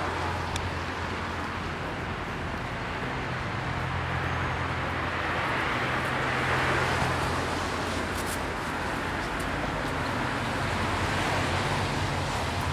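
Busy city street traffic: a steady wash of cars with engines running. The traffic swells louder about six to seven seconds in, and there are a few brief clicks a little later.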